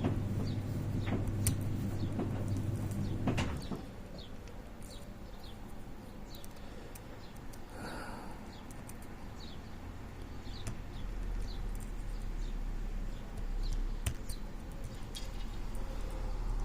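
Lock pick working inside a disc lock: faint small clicks and short, light, high scratches every second or so as the pins are pushed and set. A low steady hum stops about three and a half seconds in.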